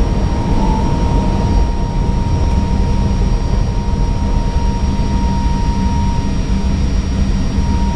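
Airbus A320neo cockpit noise during the takeoff: a steady, dense low rumble of engines and airflow, with a faint steady whine.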